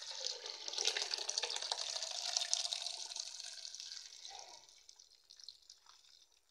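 Water, with half-cooked black-eyed beans, poured from a metal pot into a metal sieve, splashing and draining steadily. It is loudest over the first few seconds and dies away about five seconds in as the pour ends.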